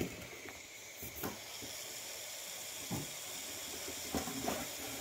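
Canned polyurethane spray foam hissing steadily out of a foam gun's nozzle as it fills a lawn mower tire, with a few faint clicks.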